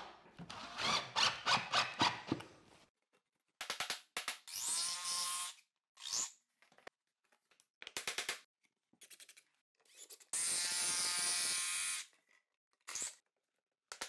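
Laminate floor planks being knocked into place with a hammer and pull bar: a quick run of knocks at first, then scattered taps. Short squeals and scrapes of plank rubbing on plank come in between, and a steady rasping scrape lasting over a second comes near the end.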